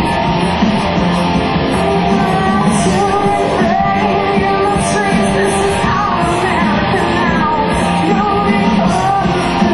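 Live rock band playing electric guitars and drums, with a woman singing into a microphone; her voice comes in a few seconds in.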